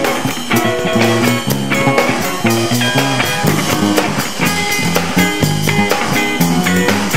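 Electric guitar playing a busy lead line of many short notes over a rock backing track with a drum kit.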